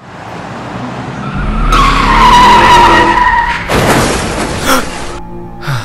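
Car tyres screeching in a skid, a loud screech that sinks slightly in pitch, followed about four seconds in by a sudden loud crash.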